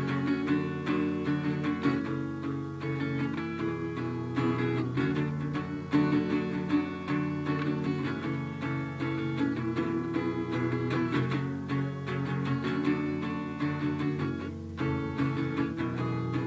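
Acoustic guitar strummed in a steady rhythm, its chords changing every second or two.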